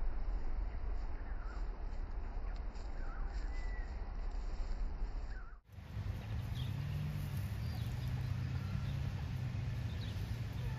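Outdoor background of a steady low rumble with short, faint bird chirps scattered through. The sound changes abruptly about halfway through, at an edit, to a steadier low hum with the chirps going on.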